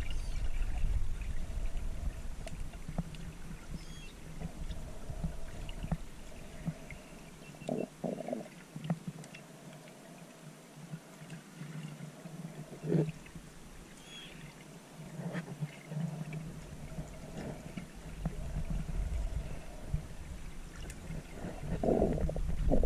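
Muffled underwater ambience picked up by a camera held below the surface: an uneven low rumble with a few soft knocks, about eight and thirteen seconds in, growing louder near the end.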